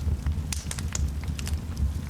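Wood fire burning in a fireplace: a low steady rumble of flames with irregular sharp crackles and pops from the logs.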